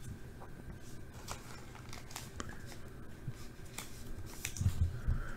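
Faint small handling noises on a tabletop: scattered light clicks and rustles, with a few soft thumps near the end.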